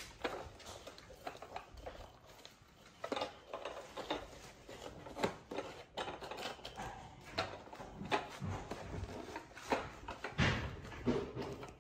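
A plastic toy and its cardboard packaging being handled as the toy is untwisted from its backing: irregular small plastic clicks and rustling.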